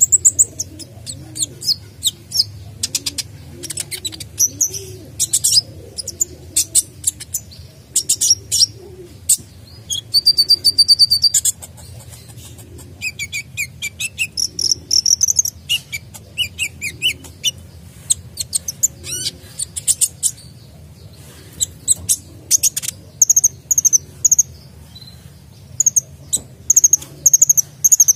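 Male sunbird singing vigorously: a long run of quick high chirps, whistles and rapid trills, packed with varied phrases, with a loud fast buzzy trill near the middle and a few short pauses.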